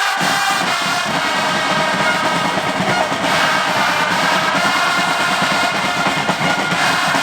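A stadium stand of football supporters singing a chant together, with drums beating along. The sound is loud and steady, with the massed voices holding long notes.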